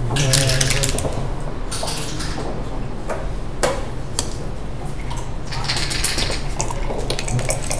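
Plastic backgammon checkers clacking and sliding on the board as a move is played: short rattles, with a couple of sharp single clacks midway.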